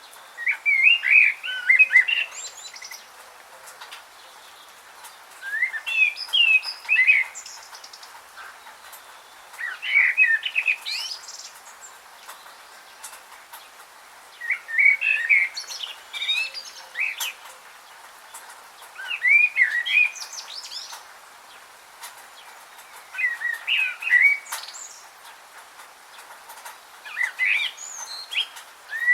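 A songbird singing a short phrase of quick warbling, rising and falling notes, repeated about every four to five seconds, over a faint steady hiss.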